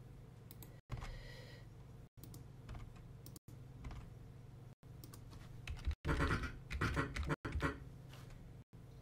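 Computer keyboard key presses in short clusters over a steady low hum, the busiest stretch about six seconds in.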